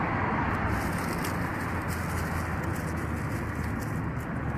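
Steady rumble of road traffic, cars passing, with a low hum underneath.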